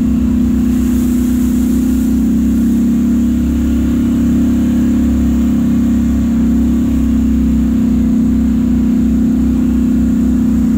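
ATV engine running steadily while riding along a muddy trail, a continuous drone with a low pulsing beneath it.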